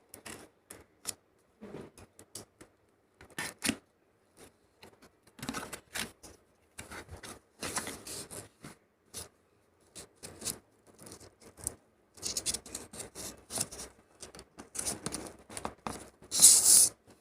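Nail polish box packaging being opened by hand: scattered scrapes, rubs and clicks of cardboard and plastic, getting busier in the second half, with a louder rustle about a second before the end.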